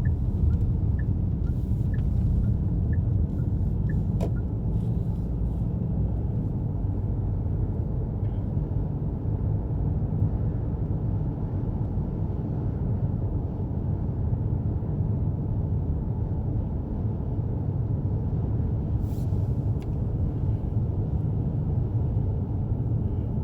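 Steady low rumble of a car's engine and tyres heard from inside the cabin while driving. For the first few seconds a turn signal ticks about twice a second during a left turn, then stops.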